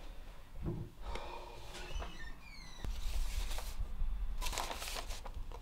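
Sheets of paper rustling as they are shuffled and leafed through by hand, loudest about a second before the end, over a steady low hum.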